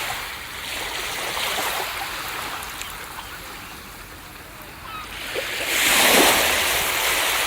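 Ocean surf on a beach: the wash of one wave ebbs away, then the next builds and breaks about six seconds in, the loudest moment, before slowly draining back.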